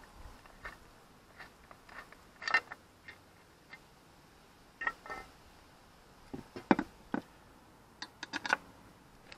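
Irregular metallic clicks, clinks and knocks of a small socket, bolts and a motorcycle engine's metal sprocket cover being handled as the cover is unbolted and taken off. A few of the knocks are louder.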